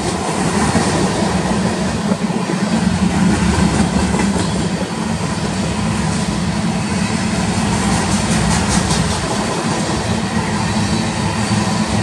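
Loaded freight train cars, mostly covered hoppers, rolling past close by: a steady rumble and clatter of steel wheels on the rails, with a few sharper clicks near the end.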